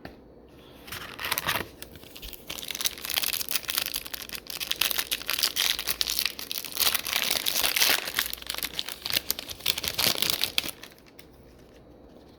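Foil wrapper of a trading card pack being torn open and crinkled by hand, a dense run of crackling for about ten seconds that stops near the end.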